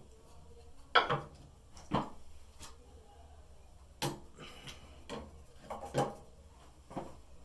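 Porcelain toilet tank lid being handled and set back on the tank: a series of hard clunks and clinks, about six of them roughly a second apart.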